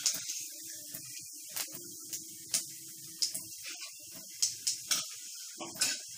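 Whole cumin seeds and a bay leaf sizzling in hot oil in a metal kadai: a steady hiss with irregular sharp pops and crackles as the seeds splutter, the sign that the oil is hot enough for tempering. Near the end a metal spatula goes into the pan.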